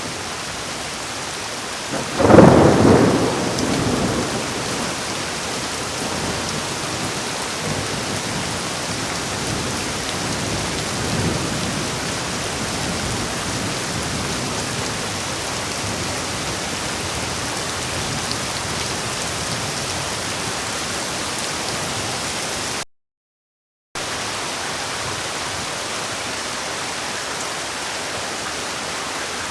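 Heavy rain falling steadily, with a loud thunderclap about two seconds in that rumbles away over a couple of seconds and a fainter rumble of thunder a few seconds later. The sound cuts out completely for about a second around three-quarters of the way through.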